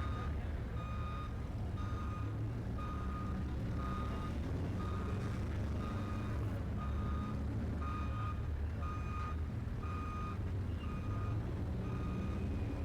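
A vehicle's reversing alarm beeping steadily, a little under two beeps a second, over the low, steady rumble of an idling engine.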